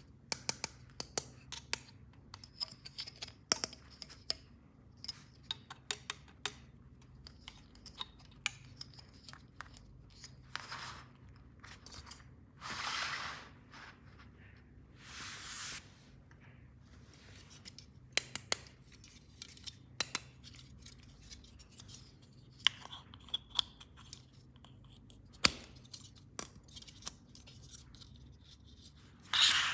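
Toy packaging being opened close up: scissors snipping and plastic wrapping tearing, amid many small clicks and taps of plastic pieces. Three longer tearing or rustling swishes, about a second each, come near the middle.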